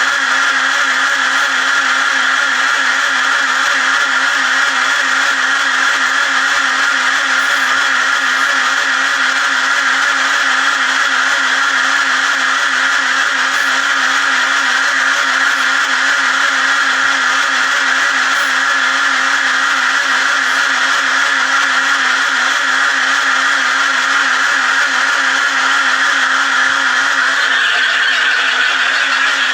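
A motor running steadily with a slightly wavering hum.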